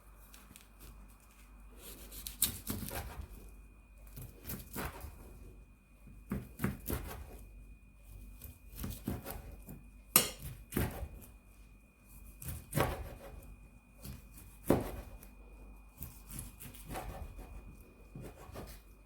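Kitchen handling noises: a string of irregular knocks and scraping rubs, as slices of kimbap are moved off a wooden board and set onto a dish. The sharpest knock falls about ten seconds in.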